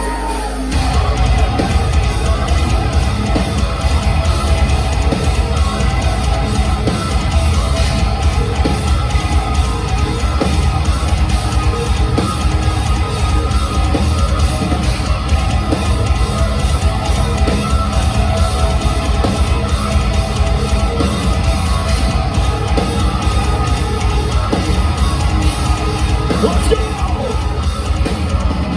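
Progressive metalcore band playing live at full volume through a venue PA: heavy guitars, bass and drums with screamed vocals. The full band comes in about a second in after a quieter lead-in, heard from within the crowd in a large hall.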